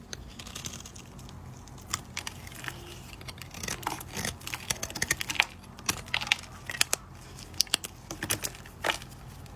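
A knife cutting and scraping through dry bar soap, giving irregular crisp scrapes and crunches, several a second in places.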